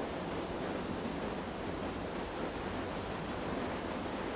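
Steady rushing noise of a car ferry under way through broken sea ice, heard from its outer deck, with wind.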